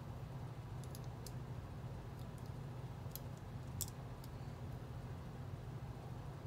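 Small plastic Lego pieces clicking and tapping as they are handled and pressed together: a scattering of short clicks, the sharpest about four seconds in, over a steady low hum.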